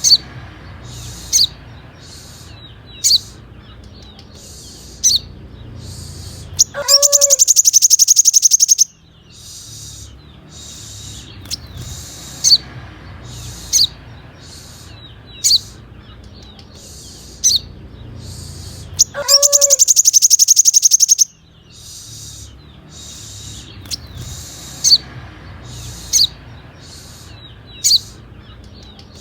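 Sunbird song: sharp, high single chirps every second or two, broken twice by a loud, very rapid high trill about two seconds long, the sequence repeating as a loop.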